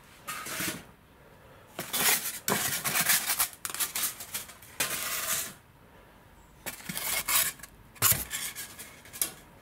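Polystyrene foam packing sheets scraping and rubbing against each other and the wooden crate as they are pulled out by hand. There is a long stretch of scraping, then after a short pause a run of shorter scrapes and knocks.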